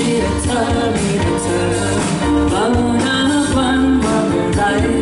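A singer singing live into a microphone over backing music with a steady bass line.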